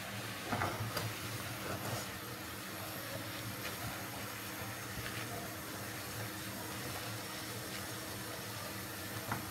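Silicone spatula stirring and scraping thick cornmeal mush (kaçamak) in a nonstick frying pan on a gas hob, a few faint scrapes over a steady low hiss.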